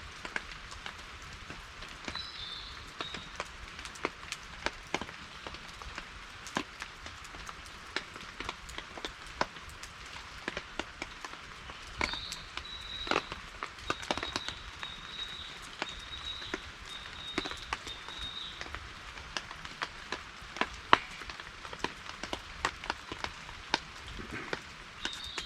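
Steady rain falling, with many irregular sharp clicks of drops throughout. A thin high whistle comes and goes, briefly about two seconds in and held for several seconds in the middle.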